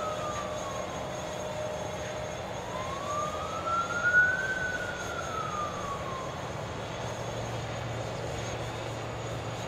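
A faint siren wailing, slowly falling, rising again and falling in pitch, over a steady rush of background noise.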